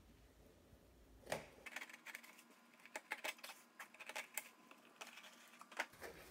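Faint knife or box cutter slitting the packing tape on a small cardboard box: a run of irregular scratchy clicks and scrapes, starting about a second in.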